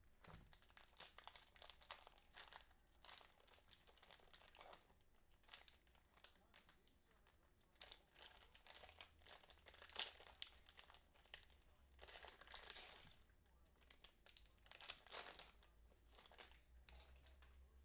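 Faint crinkling and tearing of the cellophane wrapping on trading-card packs as they are opened and handled, coming in clusters on and off.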